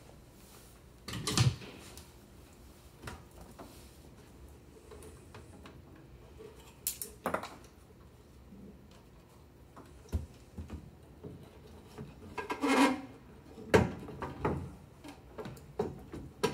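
Scattered knocks, rubs and clunks of a 1955 Morgan's wooden dashboard panel being handled and worked into place under the scuttle, with a louder cluster of knocks about a second in and several more near the end.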